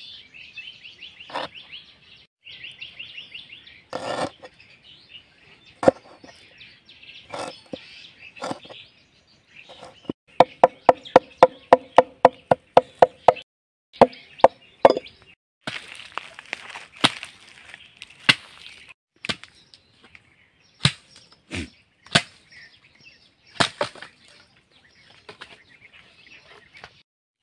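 Heavy cleaver-style knife chopping on a wooden cutting board: scattered single chops, then a fast even run of about six chops a second for a few seconds midway, then more spaced chops.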